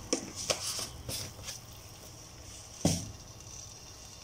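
Mustard seeds heating in sesame oil in a pan: a faint steady sizzle with a few light ticks in the first second or so, as the seeds begin to crackle. A single louder knock about three seconds in.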